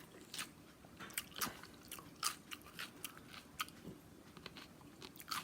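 A person chewing food close to the microphone: soft, irregular crunching and wet mouth clicks, a few each second.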